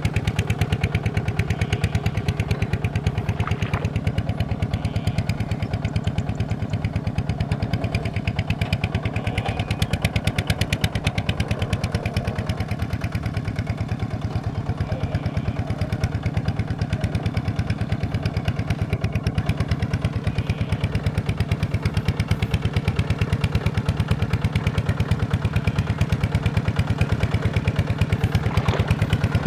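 Engine of farm machinery running steadily at an even speed, with a fast, regular pulsing.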